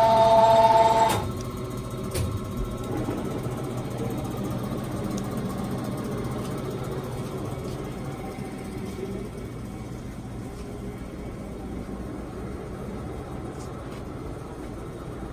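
Poreba TPK80 engine lathe running under power: a steady machine hum that slowly fades. In the first second there is a brief loud whine with a few clicks.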